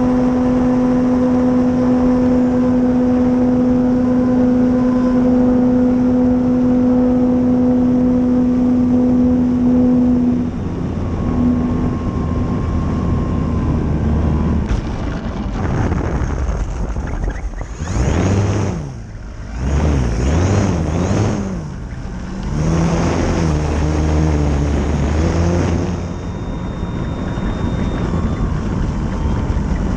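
Electric RC warplane's Dualsky 480 brushless motor and propeller running: a steady whine for about ten seconds, then it drops away into a lower rumble. Through the second half the pitch rises and falls several times as the throttle changes.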